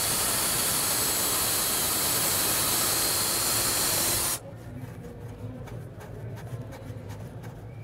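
DeWalt cordless drill running steadily as it drills a small screw hole, then cutting off suddenly about four seconds in.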